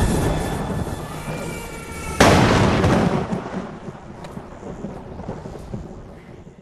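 A booming sound effect: a deep rumble fading away, then a sudden loud crash about two seconds in that dies away slowly.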